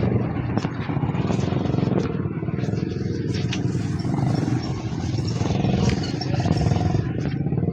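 A vehicle engine running steadily, with scattered clicks and rattles over it.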